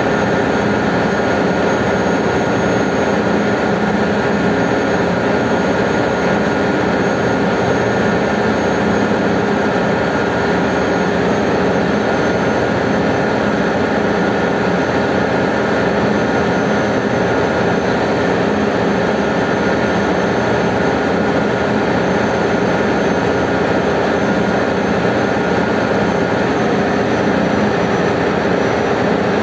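Ship's engine-room machinery running: a steady, loud drone with a constant high whine on top.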